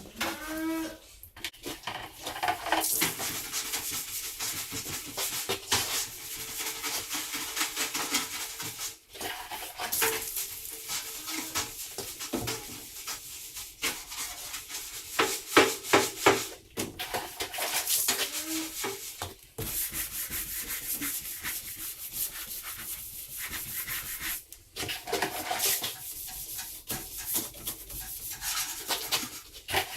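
Stiff brush scrubbing a surface in quick repeated strokes, uneven in strength.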